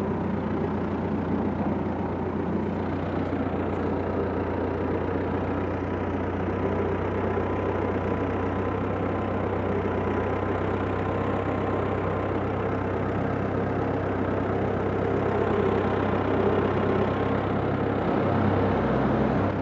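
Small tractor's engine running steadily at constant speed as it drives in gear, towing a PTO-driven hay rake, with a thin steady whine over the engine for much of the time.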